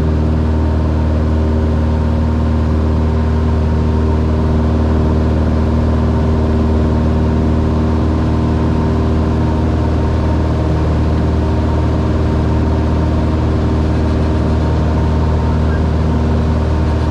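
Piston engine and propeller of a single-engine light aircraft in flight, a loud steady drone heard inside the cabin.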